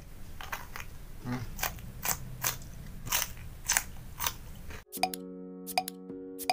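Close-up crunchy biting and chewing of raw green lalapan vegetables, a sharp crunch about every half second. About five seconds in it cuts off abruptly into music with steady notes and ticks.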